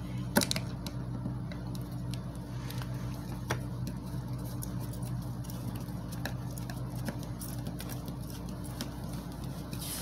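Screwdriver turning the centre screw of a receptacle wall plate: faint scattered clicks and scrapes, a clearer click about half a second in, over a steady low hum.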